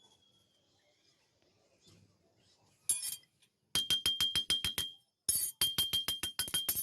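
A metal tool tapping rapidly on steel, about eight ringing strikes a second. One strike comes just before three seconds in, then two quick runs follow with a short break between them.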